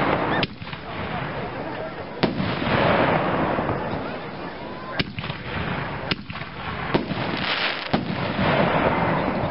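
Pyro King Colossus reloadable aerial shells firing and bursting overhead. Several sharp bangs come a second or two apart, over a dense crackling that swells and fades between them.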